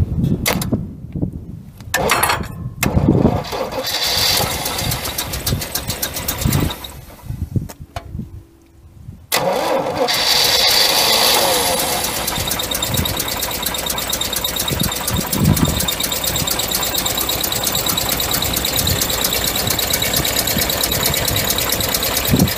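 1986 Chevrolet 5.7-litre (350 small-block) V8, taken out of its truck, being cranked over in several tries. It catches about nine seconds in, runs faster for a couple of seconds, then settles into a steady idle.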